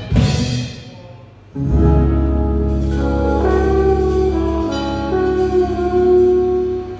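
Live band ending a song: a last drum hit fades out, then about a second and a half in, the band holds one long sustained chord over a deep bass note, which cuts off near the end.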